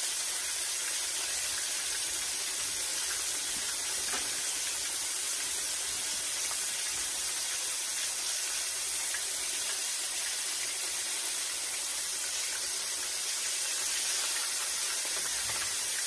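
Chicken breast frying in a pan of hot grease over medium-low heat: a steady, high sizzle.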